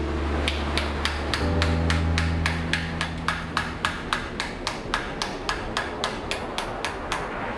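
Hand hammer striking a red-hot steel plate laid on a wooden stump, a rapid even run of blows at about four a second, shaping the hot metal.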